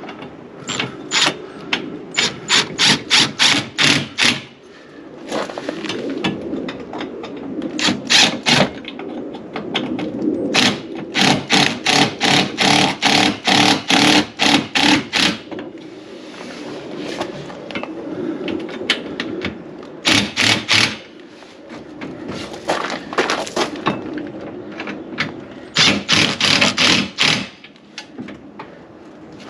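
Runs of rapid sharp clicks, several a second, from hand tools being worked during the install, over a low steady hum.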